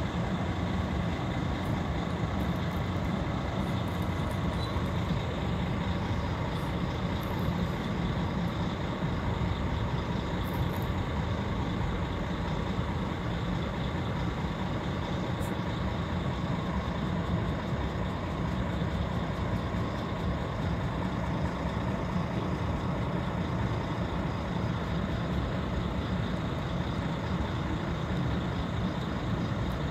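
Steady low rumbling background noise, with no distinct sounds over it.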